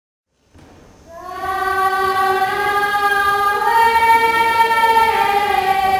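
Intro music: a sustained chord of long held notes that swells in about a second in, with the notes stepping to new pitches twice near the end.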